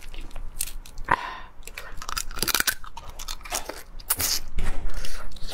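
Cooked hermit crab shells cracking and crackling as they are pulled apart by hand, mixed with crunching and chewing close to the microphone. It is loudest from about four seconds in.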